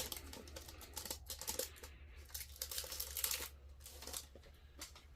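Faint, intermittent rustling and light clicks of trading cards being handled and slid past one another as a pack is flipped through, thinning out near the end.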